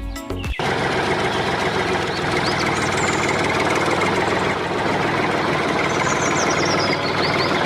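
A motor running steadily, cutting in abruptly under a second in. Faint short high chirps sound over it about three seconds in and again near the end.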